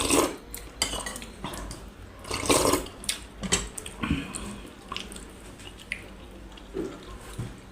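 Dishes and cutlery clinking at a meal: scattered short clicks and knocks of spoons on plates, with a few brief wet, liquid sounds.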